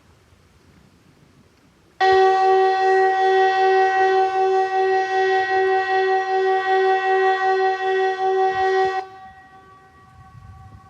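Kockum Sonics ET 751 electronic civil defence siren sounding one loud, steady two-note chord with a slight pulse for about seven seconds. It starts and cuts off abruptly, about two seconds in and near the end. A seven-second blast like this is one burst of Sweden's 'Important message to the public' (VMA) warning signal, sounded in the quarterly siren test.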